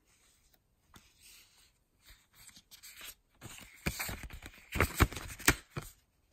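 Quiet handling noises: soft scraping and rustling, then a cluster of sharp clicks and taps in the second half.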